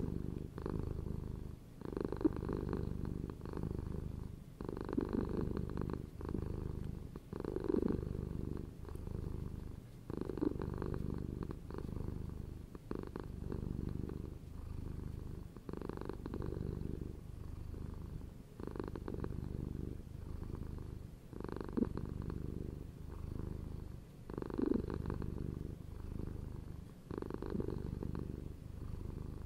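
A domestic cat purring steadily, each breath cycle swelling and fading about every two and a half to three seconds.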